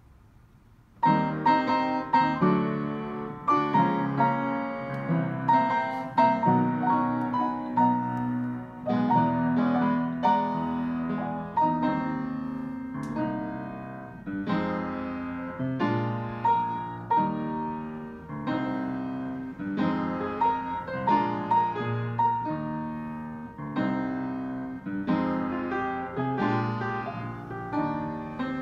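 Wm. Knabe & Co. console upright piano playing a lively piece by itself, its keys driven by a PianoDisc player system. The music starts suddenly about a second in with a strong chord, then continues as a steady stream of struck notes and chords.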